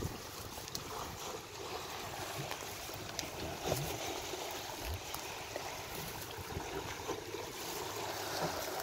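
Steady rush of flowing river water, with a few short clicks and knocks scattered through it.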